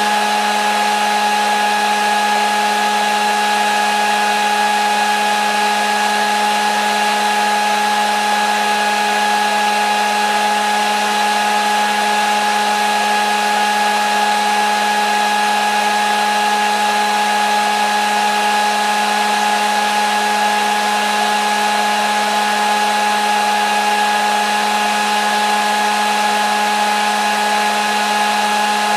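Hair dryer running steadily: a constant rush of air with a fixed motor whine and a low hum underneath.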